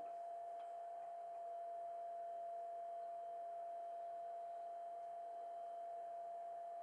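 A steady, unwavering mid-pitched pure tone over faint hiss.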